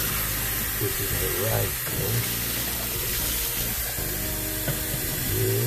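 Kitchen tap running in a steady stream.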